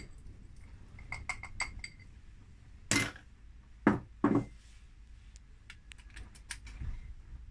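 Peppercorns clinking as they are poured from a small bowl into a wooden pepper mill, a quick run of ringing clinks, then three louder knocks as the bowl and mill are put down on the workbench, and scattered small ticks of loose peppercorns near the end.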